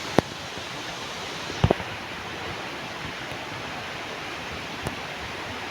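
Steady rush of a waterfall, broken by a few sharp knocks: one just after the start, a quick pair about a second and a half in, and a fainter one near the end.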